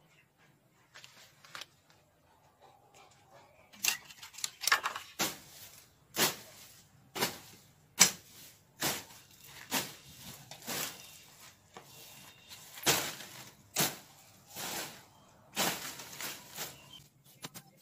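Grass and weeds being cut with a hand blade: a run of sharp swishing, tearing strokes, about one a second, starting about four seconds in.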